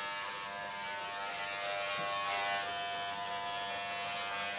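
Corded WAHL Pet-Pro electric pet clipper buzzing steadily as it is run through the long hair on a small dog's head.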